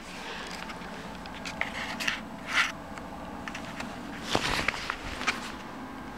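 A steady low hum with a few short scuffs and taps of footsteps on a parquet floor.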